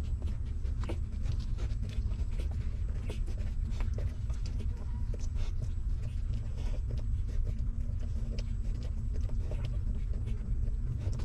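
Newborn puppies suckling at their mother's teats: many small, irregular wet clicks and smacks over a steady low rumble.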